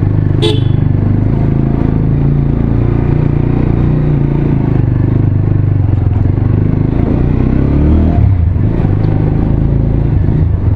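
Motorcycle engine running at low road speed, a steady drone whose note falls and then picks up again about eight seconds in. There is a brief sharp click about half a second in.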